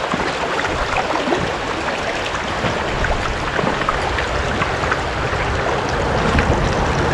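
River water flowing and rippling steadily, with small splashes and trickles, and a low rumble building near the end.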